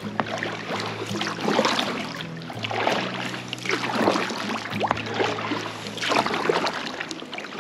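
Double-bladed kayak paddle strokes dipping and pulling through the water, a splashing swish about once a second.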